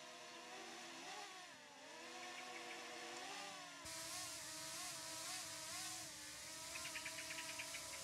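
DJI Mini 2 quadcopter hovering overhead at about ten metres, its propellers giving a faint, steady multi-tone hum that dips and rises in pitch as the drone is brought down and settles at height. A rapid run of faint ticks comes near the end.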